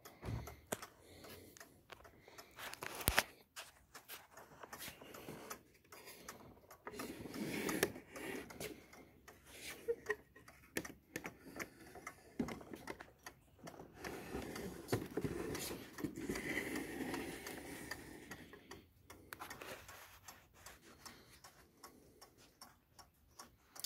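Mechanical clocks ticking, with scattered knocks and soft rubbing as the heavy carved wooden cuckoo clock case is handled and turned. One sharper knock about three seconds in.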